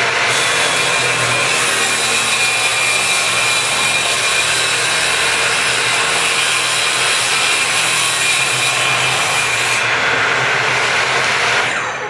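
Table saw running and ripping a 70-degree bevel along a wooden board fed against the fence. The cut runs steadily until about ten seconds in, then the saw is switched off and winds down at the very end.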